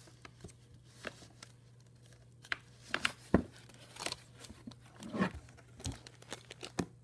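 Plastic packaging being handled: irregular crinkling and rustling with scattered crackles and a few sharper clicks, loudest a little after three seconds in and again around five seconds.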